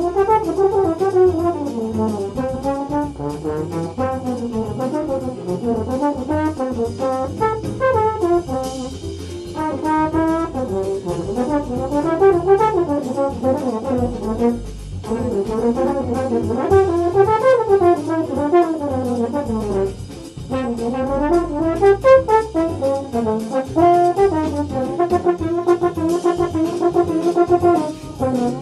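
French horn playing a jazz solo line: quick runs of notes that climb and fall, broken by a couple of short pauses.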